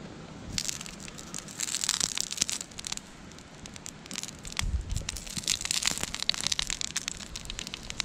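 Cherry tomatoes sizzling and spitting in hot oil in a small frying pan: a dense, irregular crackle that starts about half a second in and swells and eases in waves.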